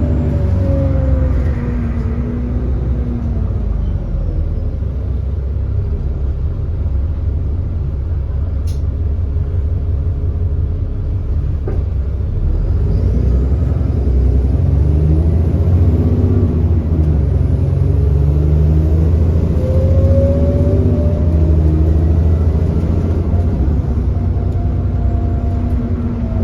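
Bus's 6.7-litre Cummins ISB diesel engine and ZF Ecolife six-speed automatic gearbox running under way with an exhaust leak. The engine note falls as the bus slows in the first few seconds, then from about halfway it rises and drops in repeated sweeps as the bus pulls away and changes up through the gears, with a single sharp click about nine seconds in.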